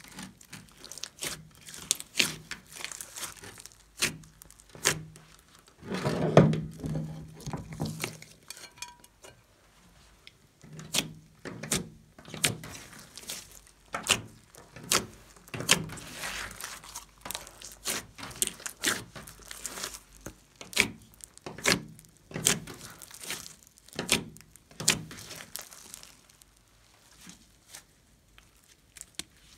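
Hands squeezing, stretching and pressing a large mass of fluffy slime, giving a dense, irregular run of sharp sticky pops and crackles, loudest about six seconds in.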